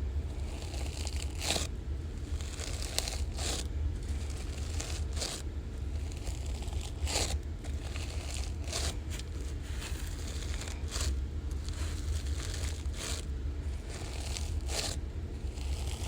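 Floam, a sticky slime packed with tiny foam beads, being squeezed and pulled apart. It gives irregular sticky crackling and tearing sounds, about one every second, over a steady low hum.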